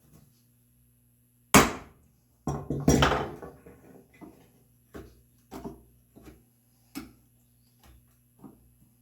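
Hand tools knocking on a red oak workpiece. One sharp, loud knock comes about a second and a half in, then a short cluster of knocks and a string of lighter, irregular taps.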